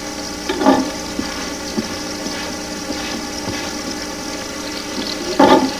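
Steady sizzling from a frying pan of food cooking in oil, over a low hum, with two brief louder sounds: one under a second in and one near the end.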